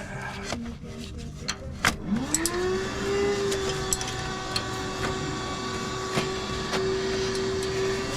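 Sharp metallic clicks and knocks of the exhaust manifold being worked into place against the engine. About two seconds in, a motor starts, spins up quickly and runs at a steady hum.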